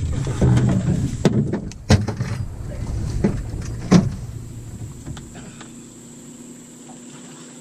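Wind rumbling on the microphone, with several sharp knocks of gear against the boat over the first four seconds. About five seconds in the rumble dies away, leaving a steady low hum.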